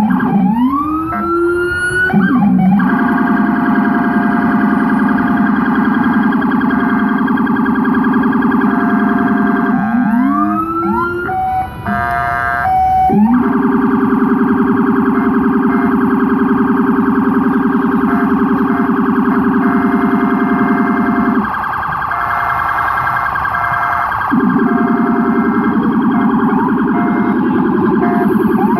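Police sirens, very loud and close: twice a wail rises in pitch and breaks into a rapid yelp that runs on, with a low Rumbler tone under it and a short tone repeating over the top. A quick burst of stepped tones comes about twelve seconds in, and the low part drops out for a few seconds past the middle.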